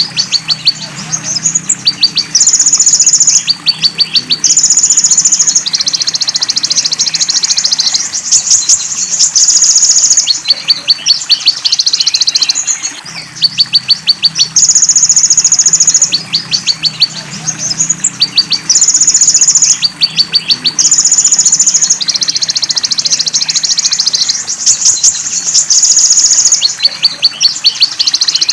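Konin (kolibri ninja sunbird) training-track song with belalang emas and cililin fills. High buzzes about a second long alternate with fast ticking trills, in a pattern that repeats every few seconds.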